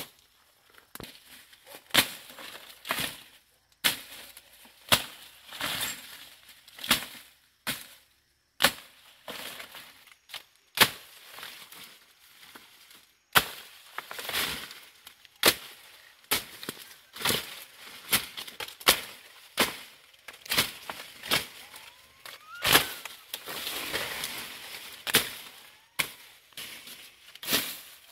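Machete chopping through undergrowth and thin stems, sharp strikes about once a second, irregularly spaced, with leaves and brush rustling between the cuts.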